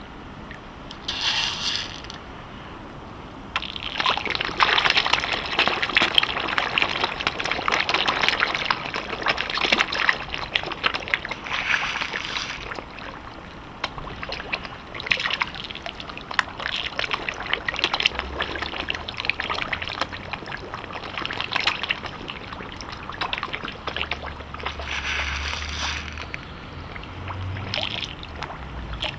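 Koi carp feeding at the water surface: a dense, crackling run of slurps, sucks and small splashes as many mouths gulp at floating food. It begins about four seconds in after a short splash and swells and eases in waves.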